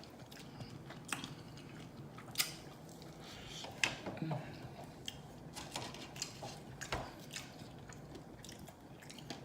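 Close-miked eating: chewing and biting with scattered sharp smacking and crunching clicks, a few each second.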